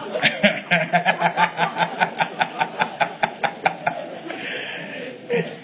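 Audience laughing at a joke, with one person nearby clapping fast and steadily, about five claps a second, for roughly four seconds before the clapping stops.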